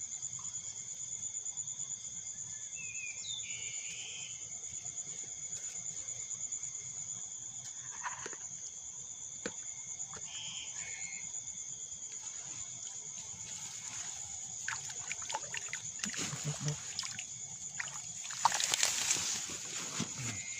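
Steady high chirring of crickets in wet grass at night, with a few short chirps now and then. Near the end comes rustling and then a louder burst of splashing and sloshing as a set hook line is pulled up with a fish on it.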